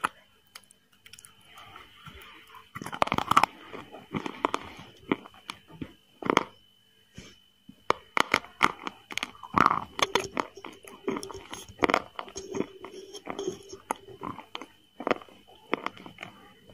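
Close-miked eating of chicken biryani: crunching and wet chewing in irregular bursts with sharp mouth clicks.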